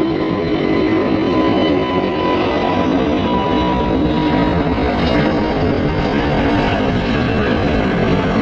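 Airbus A350-900's Rolls-Royce Trent XWB turbofans at climb power just after takeoff: a loud, steady roar with a few held whining tones running through it.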